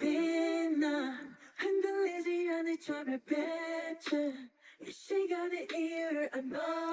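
A K-pop ballad playing, led by a soft, high male voice singing sustained melodic phrases with short breaks between them over a sparse backing.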